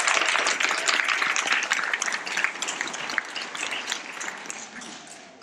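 Applause from a small group, dense hand-clapping that thins and fades away toward the end.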